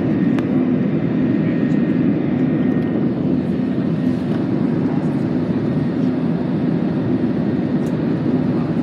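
Steady cabin noise of a Volaris Airbus A320-family jet climbing after takeoff: an even roar of the engines and rushing air, heard from inside the cabin, with a faint steady hum in it.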